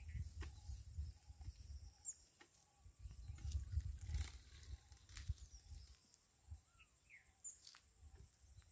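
Faint birdsong: a low note repeated steadily about every half second, with short chirps and whistles from other birds. Bursts of low rumble and a few sharp clicks come and go.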